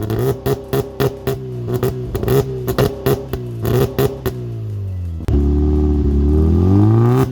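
Mazda MX-5 NB four-cylinder engine through a loud home-built exhaust, revving with rapid popping and crackling as the revs fall and climb again. About five seconds in it turns suddenly louder and steadier, the revs rising smoothly.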